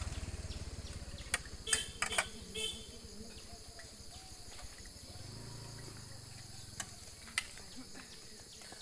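Steady high chirring of insects, with a few sharp clinks of serving spoons against steel alms bowls and dishes.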